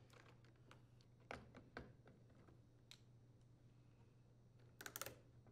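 Faint clicks of needle-nose pliers and a hose clamp being worked onto a port of a washing machine water inlet valve: two small clicks a little over a second in and a quick cluster near the end, over a low steady hum.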